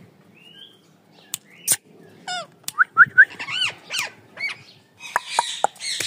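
Rose-ringed parakeets calling: a few sharp clicks and squawks, then a run of quick chirps that rise and fall in pitch. In the last second a rustle of wing flapping mixes with further calls.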